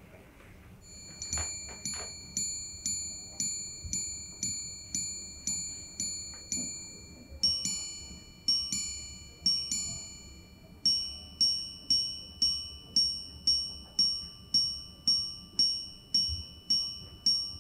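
Chopard L.U.C Full Strike Sapphire minute repeater chiming the time on its sapphire gongs. First about a dozen evenly spaced strikes on the lower gong for the hours, then three two-note ding-dong pairs for the quarters, then about fourteen strikes on the higher gong for the minutes.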